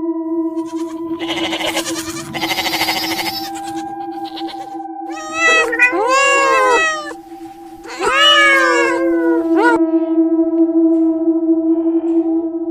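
Domestic cat meowing twice, two long meows that each rise and then fall in pitch, over steady droning ambient music. A rough, hissing noise comes before them, in the first few seconds.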